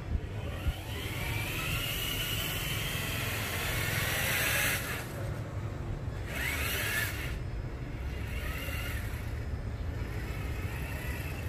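Electric motor and gear drivetrain of an RC rock crawler whining as it drives, the whine rising and falling in pitch with the throttle, over a steady low rumble. Two short clicks come near the start, and there are two brief bursts of hiss in the middle.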